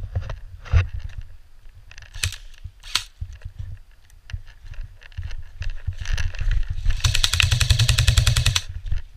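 Footsteps on a muddy path with rustling and handling of gear, then, about seven seconds in, an airsoft electric rifle fires a rapid full-auto burst lasting about a second and a half.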